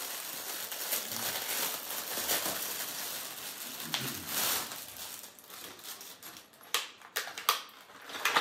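Clear plastic packaging bag crinkling and rustling as it is handled and opened, with a few sharper crackles near the end.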